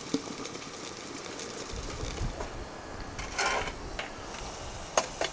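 A porcelain teapot being handled at a metal samovar: a short rush of sound a little past halfway and two sharp clinks of china and metal near the end.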